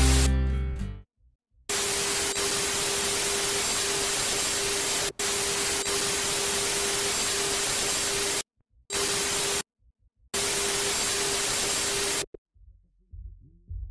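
Loud electronic static hiss with a steady hum tone running through it, breaking off abruptly several times and stopping near the end.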